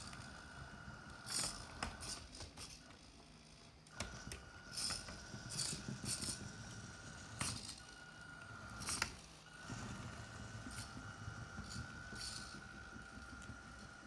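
Small electric drive motor of a radio-controlled Bruder John Deere toy tractor whining at a steady pitch as it pulls and manoeuvres a trailer. The whine stops for a couple of seconds near the start and breaks off briefly about nine seconds in. Scattered clicks and rattles sound over it.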